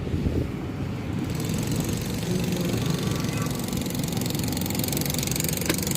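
A small vehicle engine running steadily, heard from on board, with a rushing hiss that comes up about a second in.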